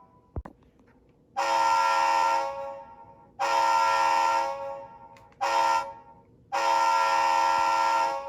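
Digitally recorded multi-chime locomotive air horn from an ESU LokSound 5 DCC sound decoder, sounded in the grade-crossing pattern: two long blasts, a short one, then a final long one. A short sharp click comes just before the first blast.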